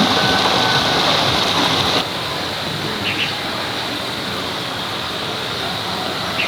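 Steady rushing of running water, with a sudden slight drop in level about two seconds in.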